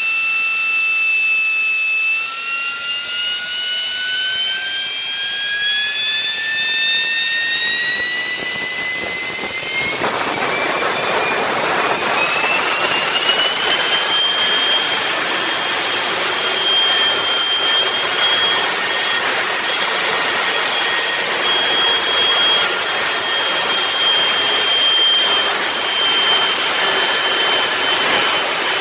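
3D-printed three-impeller jet engine model driven by a blast of compressed air. Its whine holds steady briefly, then climbs in pitch as the impellers spin up. A loud rush of air hiss comes in about ten seconds in, and the whine then settles at a high, steady pitch.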